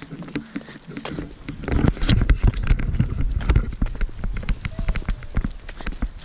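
Footsteps on a paved road, a quick run of clicks and taps over a low rumble that grows louder about two seconds in.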